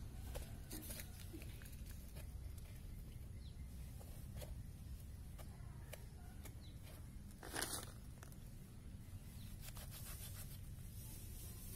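Goat hide being pulled by hand off a hanging carcass: faint tearing and rustling of skin parting from the flesh, with one louder short noise about two-thirds of the way in, over a low steady rumble.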